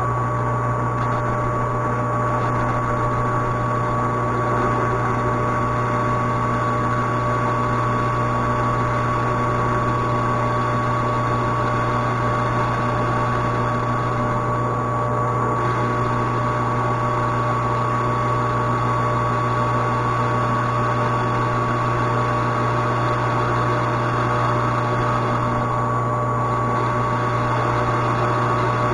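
Metal lathe running steadily while a grooving tool cuts a slot, a constant high whine over a low hum.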